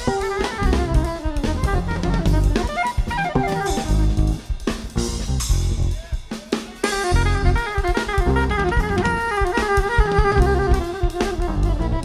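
Live jazz-fusion band playing, led by a busy drum kit of bass drum, snare, rimshots and cymbals, with bass and a melodic lead line on top. The melody drops out for a few seconds in the middle, leaving mostly drums and cymbal wash, then comes back in.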